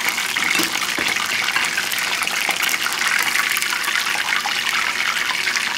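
Corn-flour-battered chicken pieces deep-frying in hot oil in a pan: a steady sizzle full of small crackles, with a couple of faint knocks about a second in.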